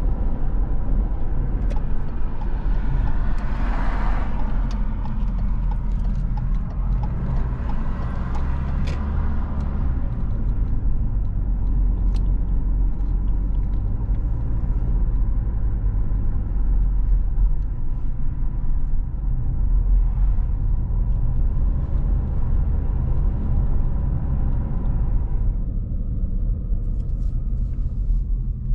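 A car driving on a paved road, heard from inside the cabin: a steady low rumble of tyres and engine, with a brief louder whoosh about four seconds in.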